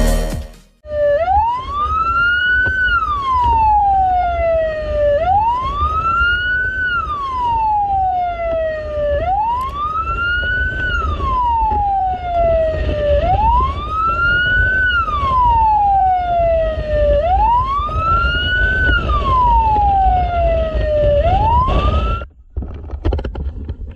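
Fire engine siren wailing, heard from on board the truck: each cycle rises quickly and falls slowly, repeating about every four seconds, over the low rumble of the truck on the road. The siren cuts off abruptly near the end.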